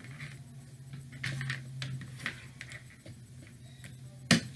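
Small handling sounds of soldering work: scattered light taps and scrapes of wire and a soldering iron on a cutting mat, with one sharp click near the end, over a low steady hum.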